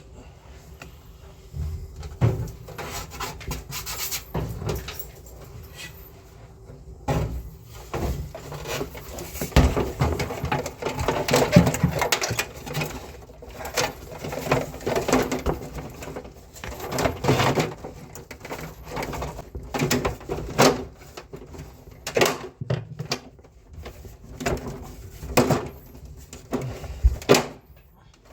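Irregular knocks, clicks and rattles of parts and tools being handled while a split air conditioner's indoor unit is worked on, busiest around the middle.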